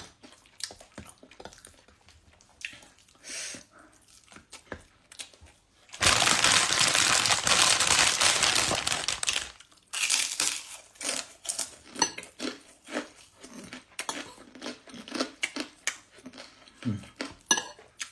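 Eating by hand: fingers working rice and patin fish on a plate, with small mouth and chewing clicks. About six seconds in, a loud, even rustling noise starts suddenly, lasts about three and a half seconds and stops abruptly.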